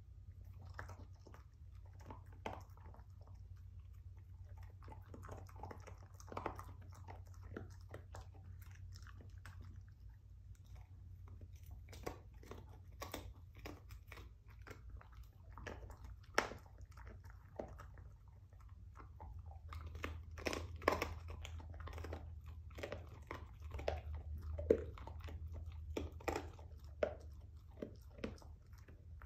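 A dog crunching and gnawing on a rawhide bone: irregular crunches and cracks, getting busier and louder in the last third.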